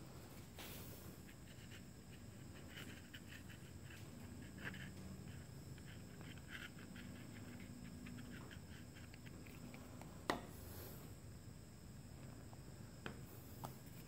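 Quiet handling sounds: faint rubbing and light scratching as a brass pen tube and a plastic glue bottle are worked in the hands, with one sharper click a little after ten seconds and two small clicks near the end.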